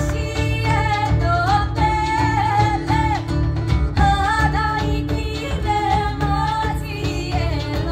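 A folk band playing live: women's voices singing a sliding, ornamented melody over double bass, acoustic guitar, violin and drums.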